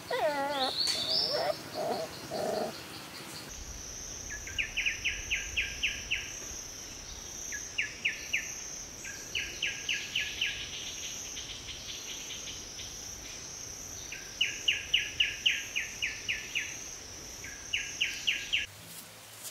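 Insects droning steadily with a bird calling in runs of short, sharp repeated notes, about five a second, several runs in a row. In the first couple of seconds there are a few brief wavering whistles or whines instead.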